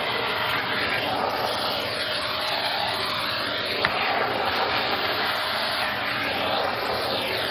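Shark vacuum cleaner running steadily on carpet, its airflow tone slowly sweeping up and down, with a single sharp click about four seconds in.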